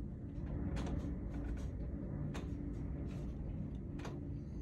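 Gusty wind blowing over the microphone as a steady low rumble, with a few faint scattered ticks and rattles.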